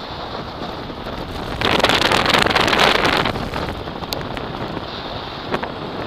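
Wind buffeting the microphone of a camera on a vehicle moving along a gravel road, with the rumble of tyres on gravel. There is a louder rush of wind noise about two seconds in that lasts under two seconds.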